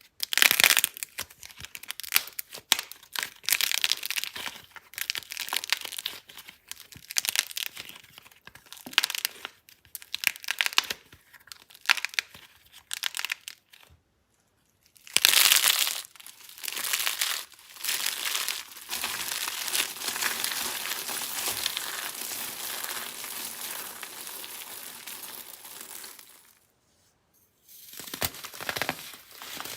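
Dry, brittle soap being crushed and crumbled, a dense run of small crackles, crunches and rasping scrapes, broken by two short silences.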